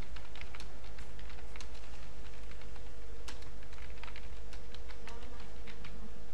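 Typing on a computer keyboard: irregular runs of key clicks as a passage of text is typed, over a steady low background hum.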